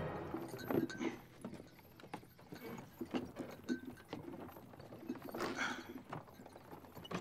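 Hooves of a wagon team clip-clopping at a walk: uneven, separate knocks.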